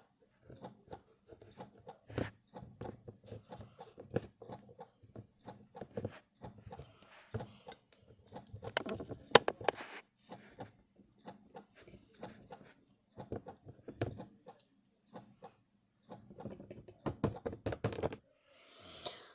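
Irregular light taps and clicks of small plastic Littlest Pet Shop toy figures being handled and set down on a surface, with a brief flurry of louder knocks about nine seconds in.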